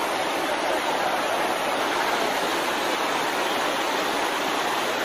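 Swollen, fast-flowing river floodwater rushing past, a steady, even rushing noise.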